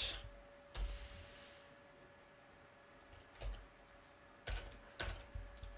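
Computer keyboard keystrokes, a few scattered clicks about a second in and a quick cluster in the second half, over a faint steady hum.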